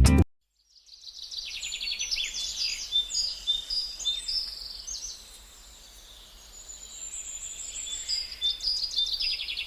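Small birds chirping, many quick high calls overlapping, easing off for a couple of seconds midway, then picking up again.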